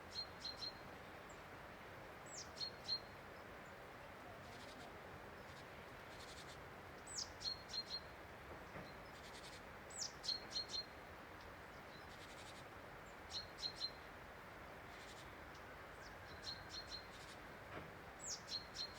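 A small songbird repeating a short call about seven times, every two to five seconds: each call is a quick falling whistle followed by three or four brief high notes, heard over a steady faint hiss.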